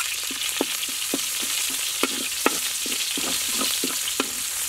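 Minced garlic and green onion sizzling in hot oil in a steel wok, while a metal spatula stirs them, scraping and knocking against the wok at irregular moments.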